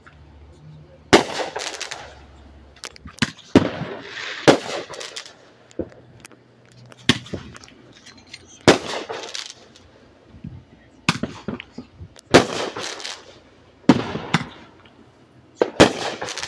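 Aerial fireworks going off: a string of sharp bangs about every second or two, several followed by a short crackling spray as the shells burst.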